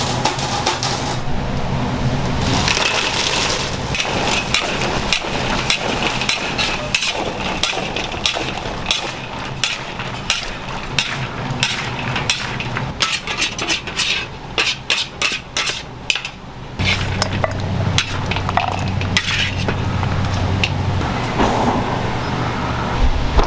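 Kitchen clatter from preparing fried chicken: a long run of quick clicks, knocks and crunches, densest in the middle, with a steady low hum coming in about two-thirds of the way through.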